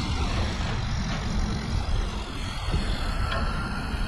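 Steady wind rush and road noise from riding a bicycle, the wind buffeting the microphone so the level keeps wavering.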